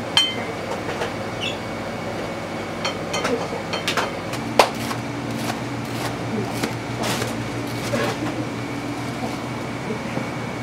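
Knife cutting through a crisp deep-fried breaded cutlet on a plastic cutting board: short crunching cuts and sharp knocks of the blade on the board, over a steady kitchen hum.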